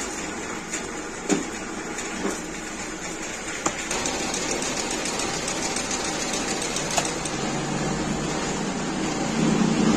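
Small plastic blow-moulding machine running with a steady mechanical noise while a green plastic tube is pushed down from its flame-heated head into the metal mould. There are a few short, sharp metallic clicks as the mould is handled, and a low hum grows stronger near the end.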